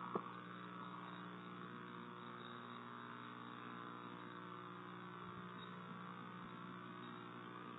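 Faint steady electrical hum with a buzzy edge, with one short click just after the start.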